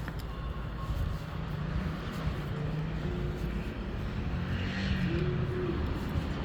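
Keikyu Line train running through a level crossing: a steady rumble with motor tones that shift in pitch.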